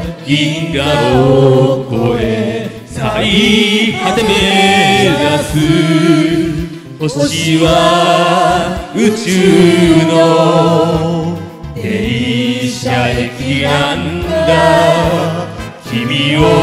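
Several amateur voices singing a Japanese pop song together into karaoke microphones over the backing track, in long phrases with short breaths between them.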